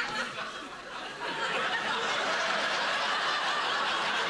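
Studio audience laughing, easing a little about half a second in and then swelling again and holding.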